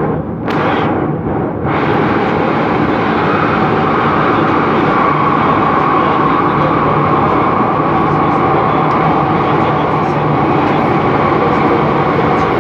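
MTR M-Train electric metro car running at speed between stations, heard from inside the carriage: a loud, steady running noise of wheels on rails and traction gear. A steady hum comes up more strongly about four seconds in.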